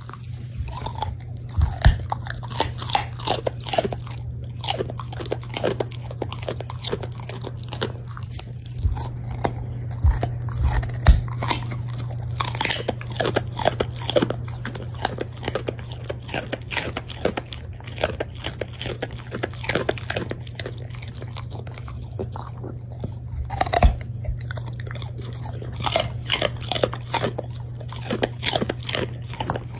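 Shiba Inu dog biting and chewing a raw carrot: repeated sharp, irregular crunches as it bites pieces off and chews them. A steady low hum runs underneath.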